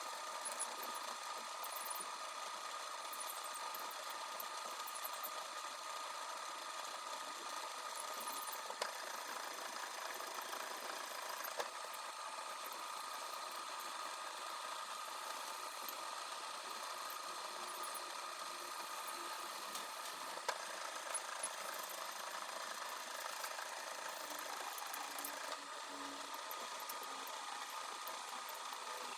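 Metal lathe running steadily with a constant whine from its motor and drive, and a few sharp ticks now and then.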